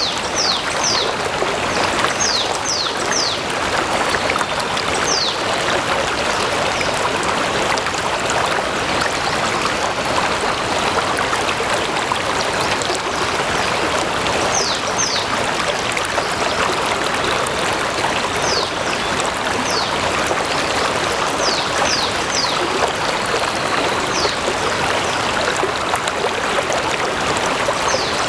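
Stream flowing steadily: a continuous, even rush of water. Short high chirps that fall in pitch come over it now and then, singly or in quick groups of two to four.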